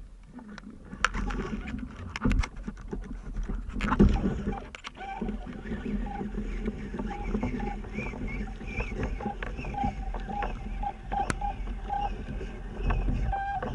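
Underwater sound picked up through a camera housing: a run of sharp clicks and knocks over a low rumble, then a string of short high blips through the second half.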